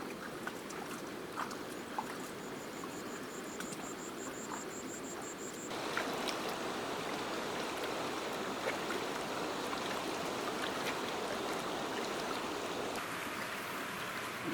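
Stream water running and trickling steadily. The flow jumps abruptly louder about six seconds in and shifts again near the end. A rapid, faint, high-pitched ticking runs through the first half.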